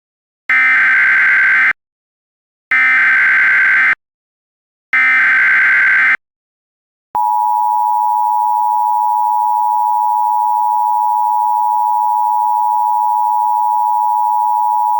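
Emergency Alert System opening: three identical bursts of SAME header data tones, each just over a second long with short gaps, then the steady two-tone EAS attention signal held for about eight seconds.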